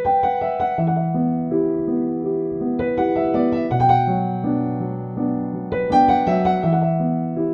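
Calm, slow piano music: sustained notes over a slowly stepping bass line, with fuller chords struck at the start, about three seconds in and about six seconds in.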